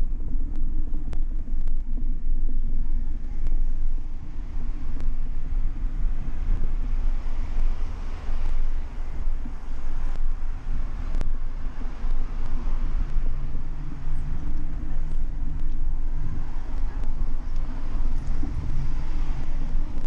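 Wind buffeting a small action camera's microphone on a moving bicycle: a loud, fluctuating low rumble with road and traffic noise underneath and a few light clicks.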